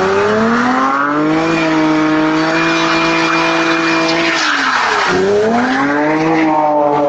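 Car engine revving hard with tyres squealing and skidding, the sound of reckless wheelspin driving. The revs climb, hold high for about three seconds, drop sharply about five seconds in, then climb again.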